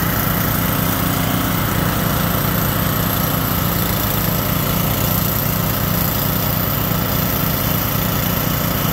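Small gasoline engine running steadily at a constant speed.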